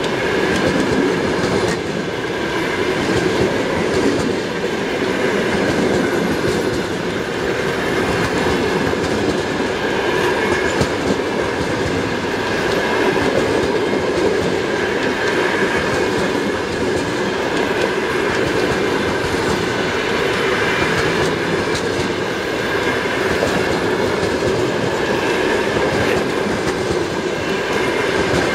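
Passenger coaches of an express train rolling past close by: a steady loud rumble and rattle of wheels running on the rails, unbroken throughout.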